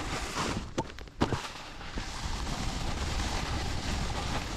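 Snowboard running over snow, with a few sharp knocks of the board about a second in, then a steady rush of snow and wind.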